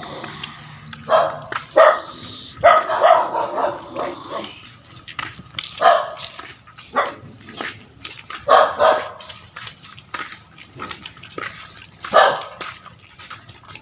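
Dogs barking, in short bursts, some in quick runs of two or three, with pauses of a second or more between.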